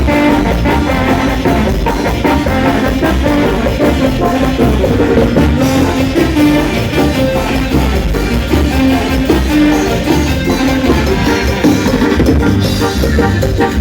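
Latin dance music playing steadily, with a driving drum beat and shaken percussion under pitched melody lines.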